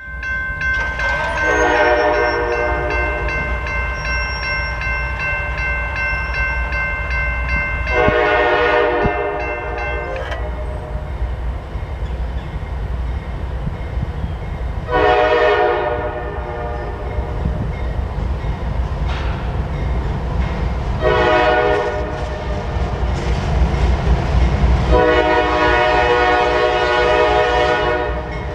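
Diesel locomotive horn sounding a series of blasts over the low rumble of four light CSX diesel locomotives running in reverse towards a grade crossing; the final blast is the longest, held as the engines reach the crossing.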